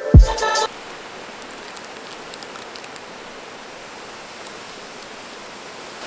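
Electronic music with a beat cuts off less than a second in, leaving the steady rush of a waterfall.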